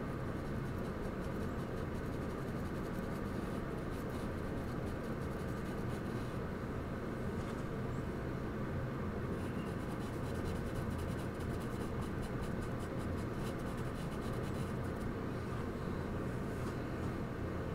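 Charcoal being stroked and rubbed on paper, as faint scratching that comes and goes, over a steady low rumble of room noise.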